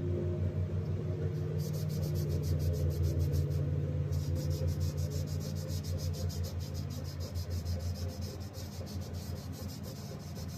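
Scotch-Brite pad scrubbing a metal carburetor float in rapid back-and-forth strokes, with a brief pause about four seconds in.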